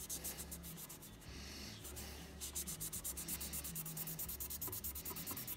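Fast back-and-forth rubbing strokes of a cloth buffing a small browned steel rifle part, several strokes a second. There is a short burst at the start and a longer, steady run from about two seconds in almost to the end.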